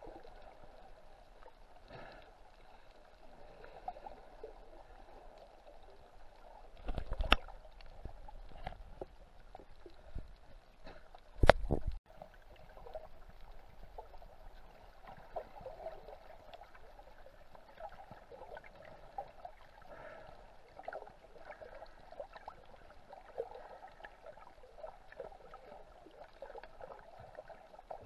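Underwater sound picked up through an action camera's waterproof housing while snorkelling: a steady hiss with many small clicks. Two loud, deep bursts of thumping come about seven and eleven and a half seconds in.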